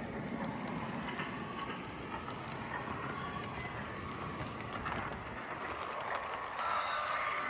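Model train running along the layout track, a steady rolling rumble of wheels and motor with faint clicks. Near the end a higher, steady tone joins in as the train reaches the station.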